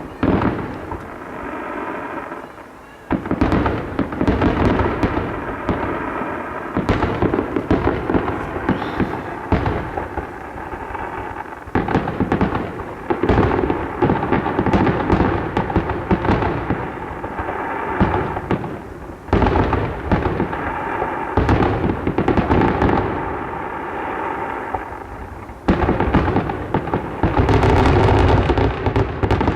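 Fireworks display: aerial shells booming and crackling in rapid, overlapping succession. There is a short lull about three seconds in, and a dense, continuous barrage of bursts near the end.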